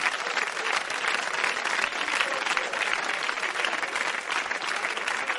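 Live audience applauding: steady, dense clapping.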